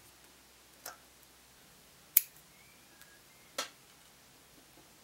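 Three separate sharp clicks, about a second and a half apart, the middle one the loudest, from tools and parts being handled during the bike work.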